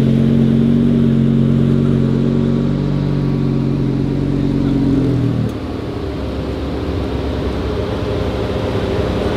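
The swapped-in Audi RS3 2.5 TFSI five-cylinder of a tuned VW Golf 7.5 R idling with a steady hum. About five and a half seconds in, the steady tone drops away and the idle turns into a choppier low rumble.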